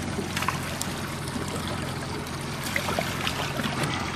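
Water trickling and splashing beside a trolling fishing boat, over the steady low hum of its motor.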